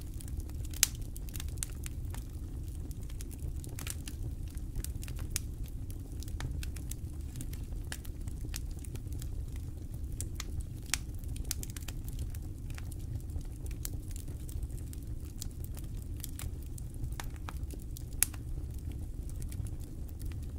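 Wood campfire crackling, with irregular sharp pops scattered throughout over a steady low rumble; a few pops are louder, about a second in, around the middle and near the end.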